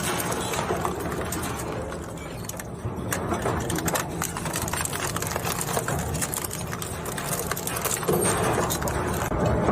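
Plastic shredder machine running: a steady motor hum under a dense, irregular crackling clatter.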